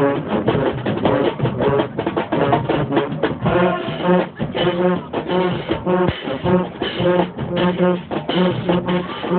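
Marching band music: brass instruments playing over drums with a steady beat.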